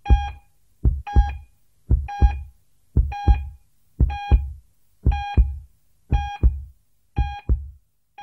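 Heartbeat sounding in pairs of low thumps, lub-dub, about once a second. Each beat comes with a short electronic beep like a hospital heart monitor's.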